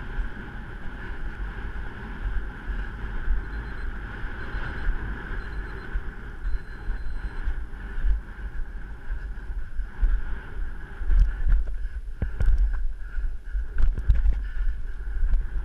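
Wind rushing over the microphone of a rider on a cantering horse, with a steady low rumble and the horse's dull hoof thuds, which come heavier about eleven seconds in.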